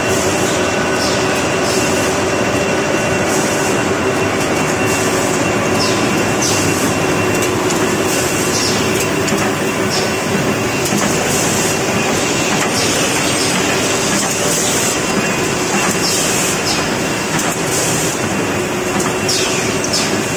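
An A4 paper sheeter and ream-wrapping line running: a loud, steady mechanical clatter with a constant hum, and short high squeaks and clicks throughout.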